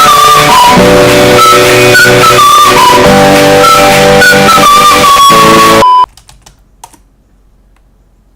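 Chill soul rap instrumental music with a steady beat and a melody, cutting off suddenly about six seconds in, followed by quiet room tone with a few faint clicks.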